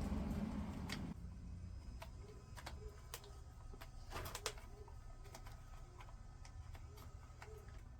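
Faint scattered clicks and light taps of small plastic and metal chainsaw parts being handled and fitted into place, a few louder ones about four seconds in. A low rumble fades and cuts off about a second in.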